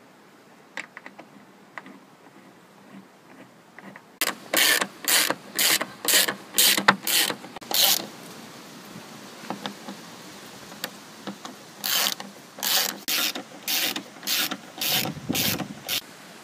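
Socket ratchet wrench worked back and forth in quick strokes, about two a second, tightening the sponson bolts. A few light clicks come first, then two runs of loud ratcheting with a pause between them.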